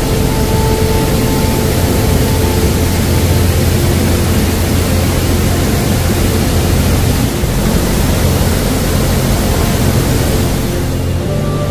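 Steady rushing roar of white water cascading from a karst spring, with soft background music of held chords underneath. The chords change about a second in and again near the end.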